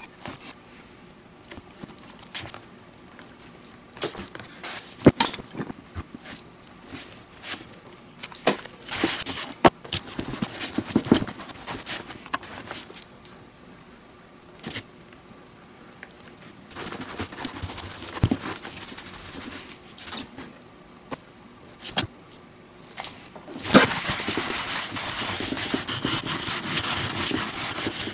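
Leather baseball glove being handled and its leather laces worked: scattered clicks, scrapes and rubs. About 23 seconds in, a stiff brush starts scrubbing the glove's leather in steady, rapid strokes.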